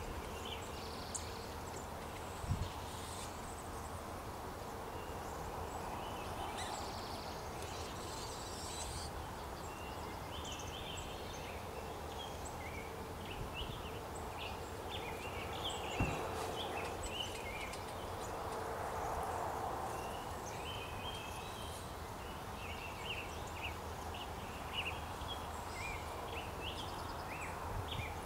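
Outdoor ambience: a steady distant hum with many short, high bird chirps scattered throughout, and a couple of brief low bumps.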